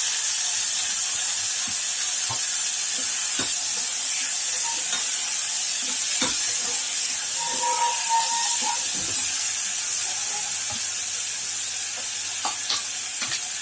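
Chopped onion sizzling in hot oil in a small pressure cooker, with the steady hiss of frying and occasional light taps and scrapes of the stirring spoon against the pot.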